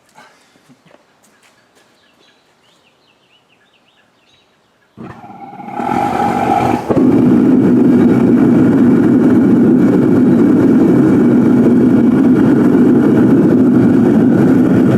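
Faint clicks and knocks, then about five seconds in a propane forge burner comes in suddenly and runs loud and steady, reaching full strength by about eight seconds, heating a crucible of brass for melting.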